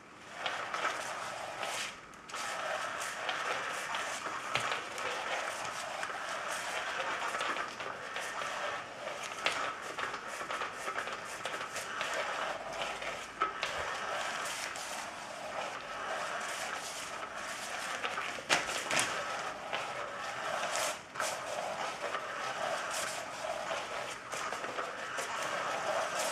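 Battery-powered 'Undercover Mouse' cat toy running: its motor whirs steadily as it sweeps a wand around under the nylon cover, with rustling and small scratching clicks from the fabric. The whirring briefly drops out about two seconds in.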